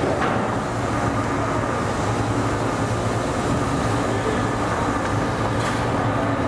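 Steady hum and rush of ventilation machinery in a commercial kitchen, with a faint tick near the end.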